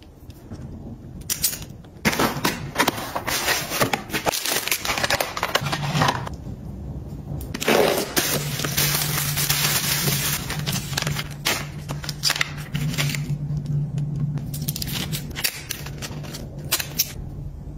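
Crinkling and tearing of packaging as a small taped cardboard parcel is unboxed, coming in several loud bursts.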